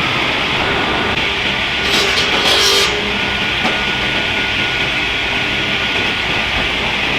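Sawmill cutting line running steadily as machinery pushes timber through the saws, with a brief louder, hissier stretch about two seconds in.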